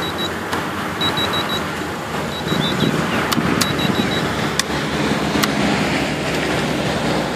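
Electronic warning beeps from a radio-control transmitter: short high beeps in groups of four, repeating about every second and stopping about four seconds in, with a few sharp clicks over steady background noise.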